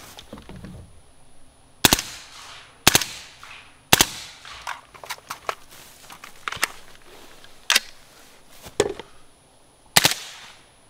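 Daniel Defense DDM4 ISR, an integrally suppressed .300 Blackout AR-15, firing single semi-auto shots about a second apart, seven in all, each a sharp crack with a short ring. Partway through, the shots pause for a magazine change, heard as a run of lighter clicks and rattles.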